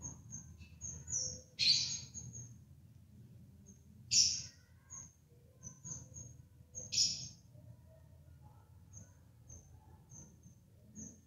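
Budgerigars chirping: many short, high chirps, with three louder harsh calls about two, four and seven seconds in.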